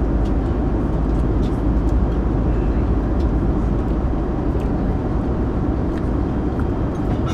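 Steady low roar of an airliner cabin in flight: engine and airflow noise, with a few light clicks scattered through it.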